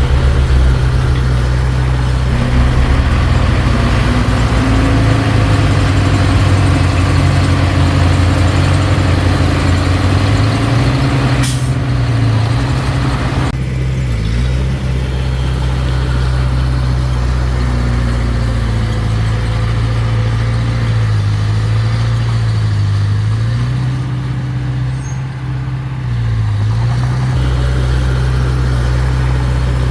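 Mini bulldozer's diesel engine running steadily under load, its speed sagging and recovering several times as the blade pushes. A sharp click comes partway through.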